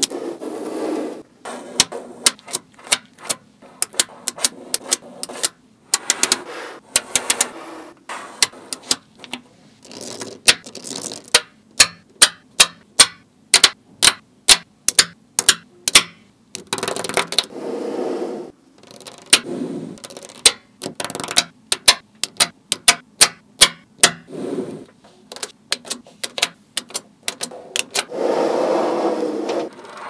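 Small magnetic balls clicking sharply as they snap onto one another, in quick runs of clicks, with a few longer stretches of softer rattling as the balls are shifted and rolled about.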